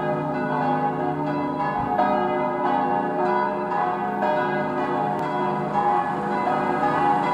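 Church bells pealing: several bells struck in quick succession, their tones overlapping and ringing on without a break.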